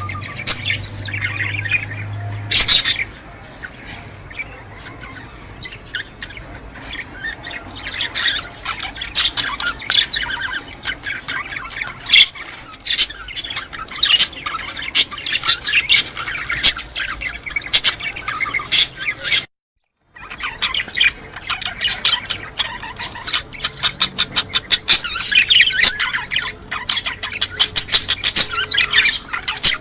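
Many small cage birds chirping and chattering in a dense, rapid stream, the kind of flock chatter played as a breeding-stimulation sound for pet birds. The sound cuts out completely for about half a second around two-thirds of the way through.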